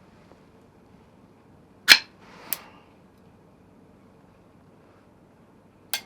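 Sharp clacks of hard objects knocking together: a loud one about two seconds in, a softer one half a second later followed by a brief rustle, and another near the end.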